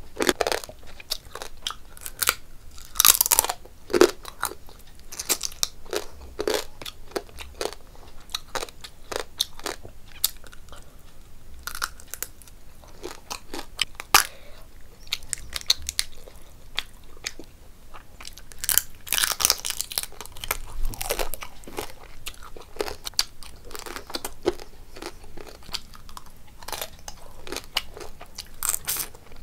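A person eating with her hands close to the microphone: chewing and biting with many sharp crunches, busiest about three seconds in and again around nineteen to twenty seconds in.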